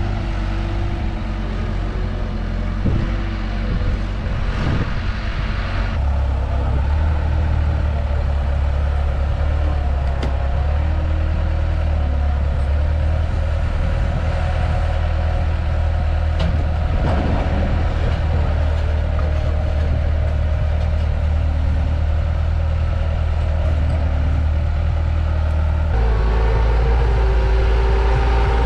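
A compact construction machine's diesel engine runs steadily under work, stepping up in engine speed about six seconds in and again near the end. A few short knocks sound over it.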